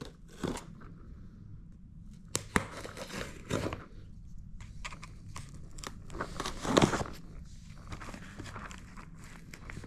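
Shipping packaging being torn open and handled: irregular tearing and crinkling with sharp clicks and knocks, the loudest rustle about seven seconds in.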